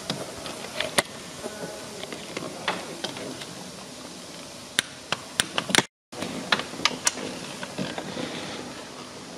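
Scattered light clicks and knocks of hand tools and engine parts being handled during timing-belt and water-pump reassembly, with a short break in the sound about six seconds in.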